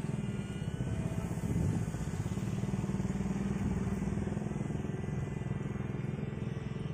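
Radio-controlled model airplane engine running in flight: a steady drone with a faint higher whine.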